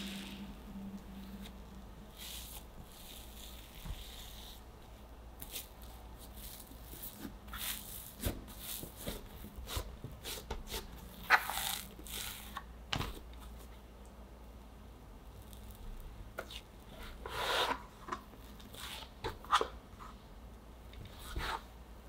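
Hands working soft, risen yeast dough: punching it down in a glass bowl, then pressing, folding and cutting it with a plastic scraper on a mat. The dough gives soft squishing and tearing sounds, with a few sharp taps along the way.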